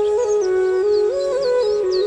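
Background music: a slow melody in held notes that step up and down, with many short bird chirps sounding high above it.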